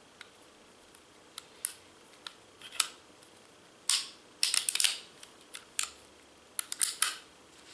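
Metal clicks and clacks of a Beretta pistol being handled during disassembly: single sharp clicks, then quick clattering runs of several clicks about halfway through and again near the end.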